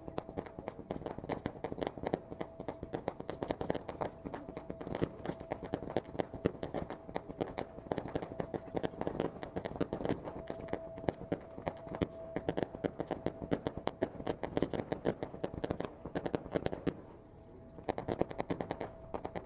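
Fireworks display: a rapid, continuous barrage of bangs and crackling pops from bursting shells, easing off briefly near the end.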